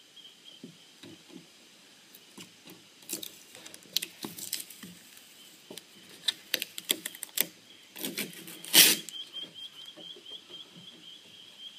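Plastic milk bottle being torn open and handled: irregular clicks, scrapes and crackles, busier from about three seconds in, with one loud rasping tear just under nine seconds in.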